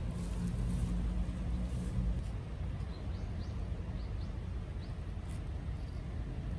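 Low, steady outdoor traffic rumble, with a vehicle engine hum in the first two seconds. A few faint, short high chirps come through in the middle.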